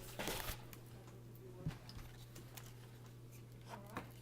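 Light clicks and a short rustle of small parts and tools being handled during a laptop repair, over a steady low hum.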